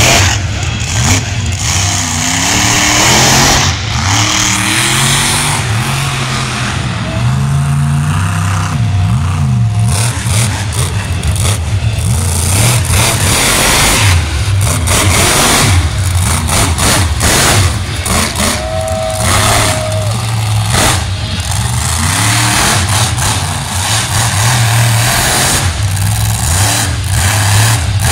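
Monster truck engine revving hard as the truck drives around a dirt arena, its pitch rising and falling again and again.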